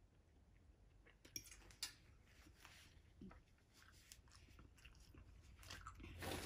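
Faint eating sounds: a person quietly chewing instant ramen noodles, with a couple of light clicks of a metal fork against a ceramic plate in the second second. A brief louder rustle comes near the end.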